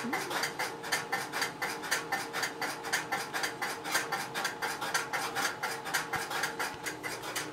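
Rapid, even clicking of running telephone switching relays, about six clicks a second, over a steady hum.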